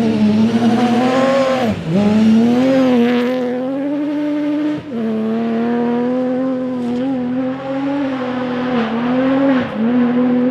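Historic rally car's engine pulling hard at high revs, with a brief lift for a gear change about two seconds in and another about five seconds in, then holding a steady high note.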